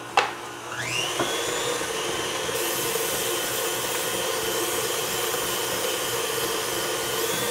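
Electric stand mixer motor starting about a second in, its whine rising to speed and then holding steady as it beats cake batter. From about two and a half seconds in, the steady hiss of aerosol cooking spray being sprayed into a baking pan, stopping just before the end.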